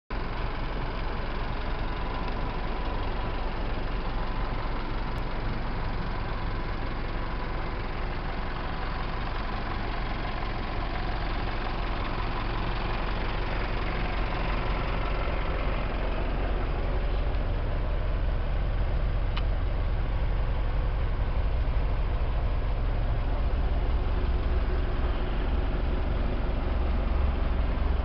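Nissan cab-over fire truck's engine idling steadily, a low even rumble that grows a little louder near the end.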